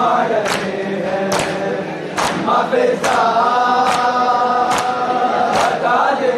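A group of men chanting a nauha in unison, with a long held note in the second half, over sharp rhythmic slaps of open hands on chests (matam), a little more than once a second.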